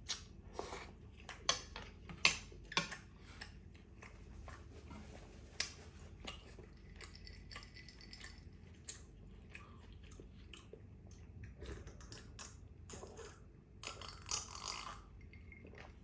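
Close-miked chewing of a bún trộn bò (Vietnamese beef noodle salad) mouthful, with sharp wet mouth clicks, most of them in the first few seconds, and a denser stretch of chewing noise near the end.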